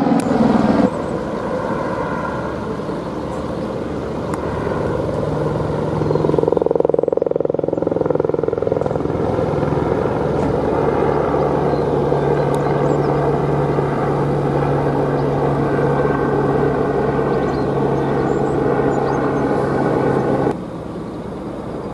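Helicopter flying overhead, a steady rotor and engine drone. Its level shifts abruptly about a second in and again near the end.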